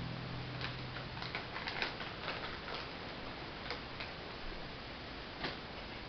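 Faint, irregular clicks and crinkles from a small plastic treat bag being handled, over a steady background hiss.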